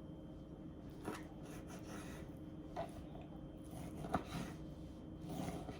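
Small kitchen knife slicing through a Roma tomato onto a cutting board, giving a few faint, short taps.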